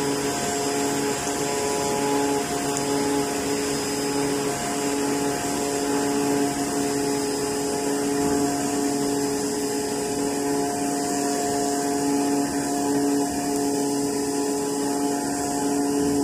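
AOKE CNC flatbed cutter running while it cuts a sheet of 5-ply corrugated board, a steady machine hum with a few held tones.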